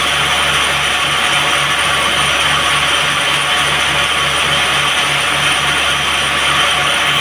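Sawmill band saw running steadily, with a low pulsing beat about four times a second under a loud, even whir.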